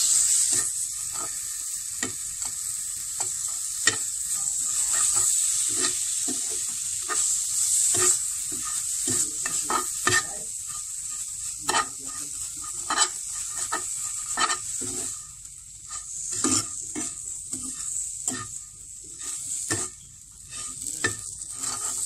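Fine vermicelli with condensed milk sizzling in a frying pan over low heat while a metal spatula stirs it, scraping and tapping against the pan bottom in quick, irregular strokes. The sizzle is a steady high hiss that thins out a little in the second half.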